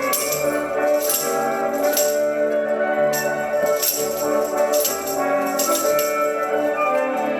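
Orchestral music with rattle-like percussion strokes at about one a second over sustained pitched notes.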